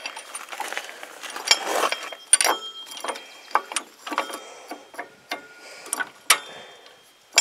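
Irregular small metallic clicks and clinks as the bolt and retainer of a go-kart torque converter's driver pulley are handled and set in place against the pulley.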